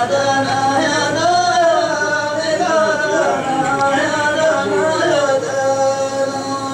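A man's voice singing a Hadrami dan melody, its pitch bending and wavering in long melismatic phrases over a steady held tone. The wavering line gives way to the held tone alone about five and a half seconds in.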